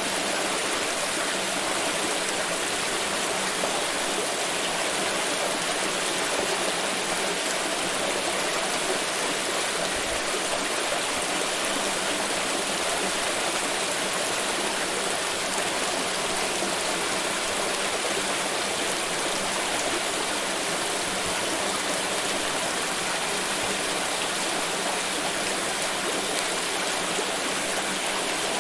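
Water pouring and rushing in a steady, unbroken stream.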